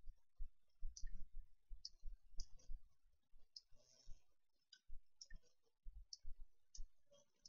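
Computer mouse clicking irregularly: about a dozen short, sharp clicks with soft low knocks among them.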